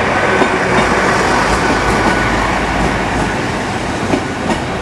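Diesel train running along the track through the station: a steady rumble and hiss, with a few sharp clicks of the wheels over the rails and a faint steady tone in the first couple of seconds.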